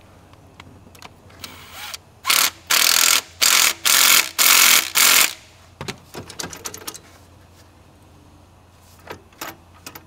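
A handheld cordless power tool run in five or six short bursts in quick succession, each under a second, followed by light clicks of tools and parts.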